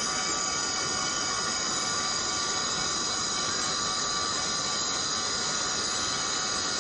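A chorus of forest cicadas singing, a steady shrill buzzing made of many overlapping high-pitched tones that hold without a break.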